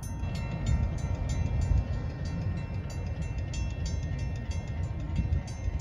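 Union Pacific intermodal freight train rolling past a grade crossing: a steady heavy rumble of wheels on rail, with a rapid high clicking about five times a second.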